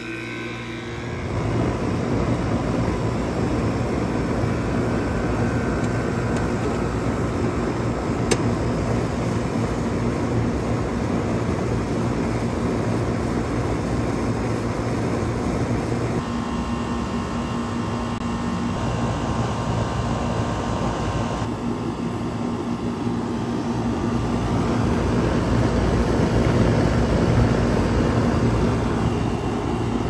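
2001 Comfortmaker 10 central air conditioner condenser unit running just after start-up: the compressor and condenser fan come up to speed over the first couple of seconds, then run on with a steady low hum under the fan's air noise.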